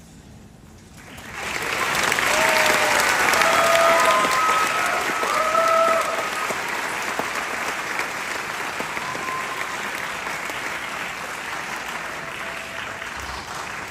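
Theatre audience applauding at a curtain call: clapping breaks out about a second in, is loudest for the next few seconds with some cheering over it, then carries on steadily and eases slightly toward the end.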